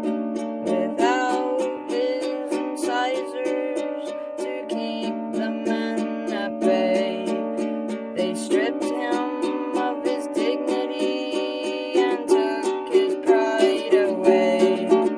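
Ukulele strummed in a steady rhythm, with a voice singing a wavering melody over it in places. The strumming gets harder near the end.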